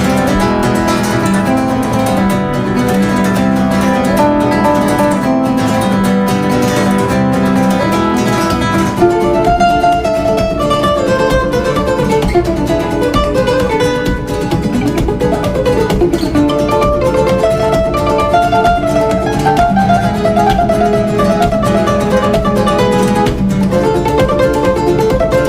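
Background music: fast-picked acoustic guitar in a flamenco style, changing to a more melodic passage about nine seconds in.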